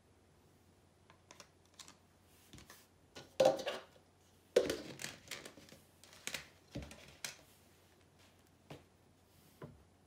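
Painting supplies being handled and set down on a table: irregular clicks and knocks, two louder knocks about three and a half and four and a half seconds in, then scattered lighter clicks.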